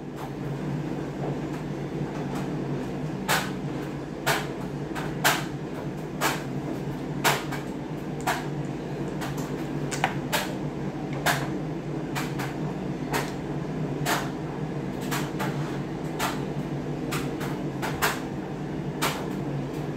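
Light, sharp clicks and taps of small hard objects being handled on a table, about one every second and irregular, over a steady low hum.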